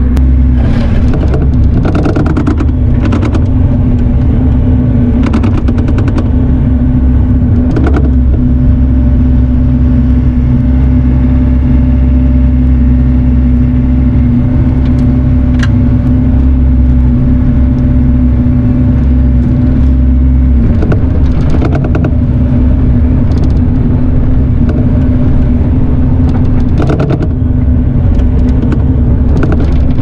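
Bobcat mini excavator's diesel engine running steadily, heard from inside the cab, with scattered clanks and rattles from the machine. The deep low rumble drops off about two-thirds of the way through while the steady engine hum carries on.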